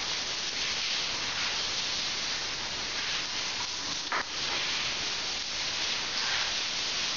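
Shower head spraying water steadily onto a person and the tiled floor: a constant, even hiss.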